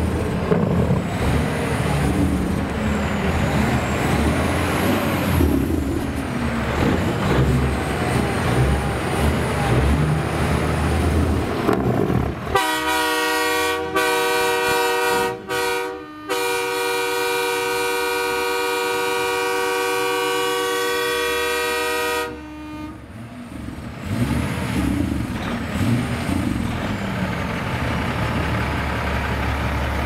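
Diesel semi-truck engines running, then a train horn mounted on a semi truck blows one long multi-note chord about twelve seconds in. The horn lasts about ten seconds with a few short breaks near its start, after which the engine noise returns.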